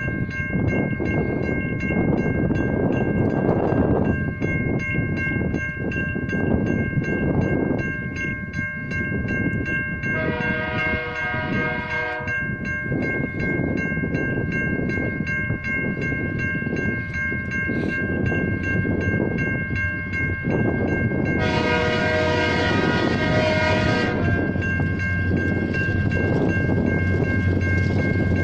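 A CN freight train passing close by, with the rumble and clatter of locomotive and wagons. The diesel locomotive's air horn sounds two long blasts, about ten seconds in and again just past twenty seconds, over a steady high ringing with fast regular strikes.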